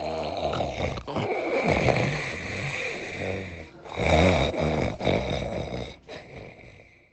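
A person snoring loudly: two long snores, the second starting about four seconds in and fading away near the end.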